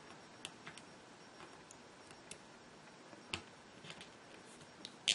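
Faint, scattered small clicks and taps of a capacitor's leads and a jumper wire being pushed into a plastic solderless breadboard and handled by fingers, with a sharper click a little over three seconds in and another at the very end.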